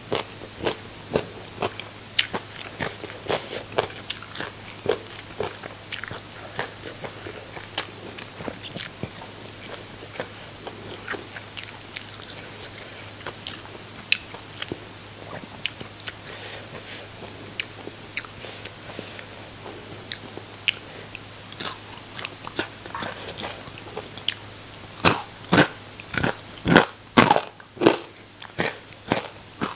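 Close-miked chewing of crispy deep-fried small fish, with a steady stream of sharp, irregular crunches that become louder and denser near the end.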